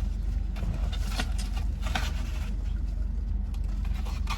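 Sealed trading-card packs being handled and dropped onto a table: a run of light clicks, taps and rustles, over a steady low hum.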